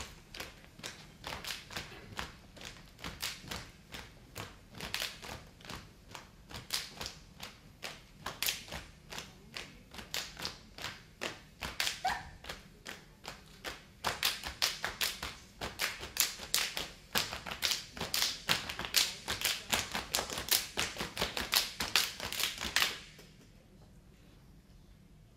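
Saman dancers' body percussion: a kneeling line of dancers clapping in unison in a steady rhythm of sharp claps. The claps quicken and grow louder about halfway through, then cut off suddenly near the end.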